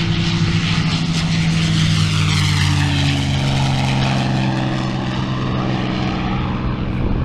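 P-51 Mustang's V-12 Merlin engine at full take-off power, a loud, steady drone. Its pitch drops a little about three seconds in as the plane passes and climbs away.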